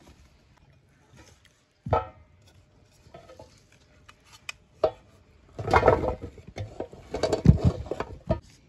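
A metal cooking pot set down on a table with one sharp knock about two seconds in. Then chunks of raw pumpkin tipped from a metal bowl into the pot, clattering and thudding against the metal for about three seconds near the end.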